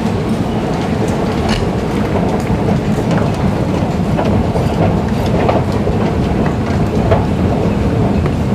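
Station escalator running with a loud, steady low rumble and scattered light clicks and rattles.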